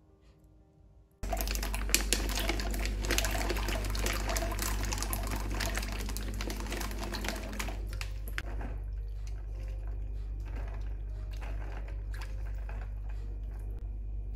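Water running and splashing into a stainless steel bowl of peanuts. It starts abruptly about a second in and lasts about six seconds. After that come quieter sloshing and light clicks as the peanuts are stirred and scooped out of the water with a mesh strainer, over a steady low hum.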